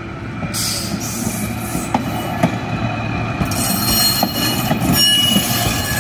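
A train rolling past, getting louder, with a few sharp clicks and, from about halfway through, a high steady squeal from its wheels.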